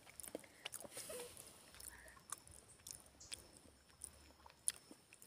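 Faint, scattered crunching clicks of a small child biting into and chewing a crisp piece of toto, a Jamaican coconut cake.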